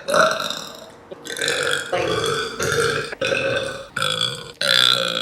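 A young woman burping again and again, about six voiced burps in quick succession, each under a second long.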